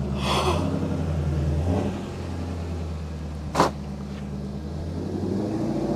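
Ford Mustang Shelby GT350's 5.2-litre flat-plane-crank V8 running steadily, briefly a little louder for about a second and a half near the start. A single sharp knock comes about three and a half seconds in.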